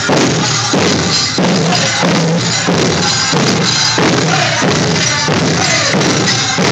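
Powwow drum group playing: a large bass hand drum struck in a steady beat, about three beats every two seconds, with the group's voices singing over it.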